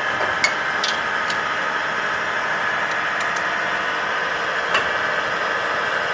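Bore well pump motor running steadily with an even hum, with a few sharp clicks about half a second, a second and nearly five seconds in.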